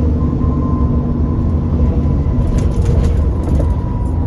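Alexander Dennis Enviro400 Trident double-decker bus running, a steady low drone with a few sharp knocks or rattles a little past halfway.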